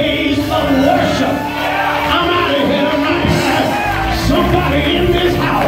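Live church praise music with singing, and shouts and whoops from the congregation, echoing in a large hall.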